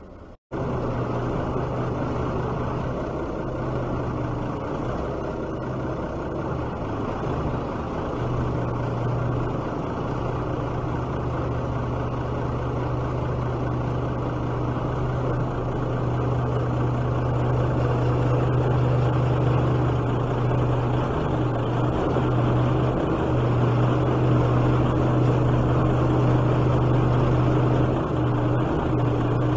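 Military wrecker truck's engine running steadily while its crane is worked, with a strong low hum; it gets somewhat louder in the second half.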